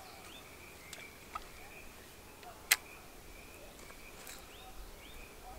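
Faint steady insect buzz with short rising chirps repeating over it, broken by one sharp click about two and a half seconds in and a couple of softer clicks earlier.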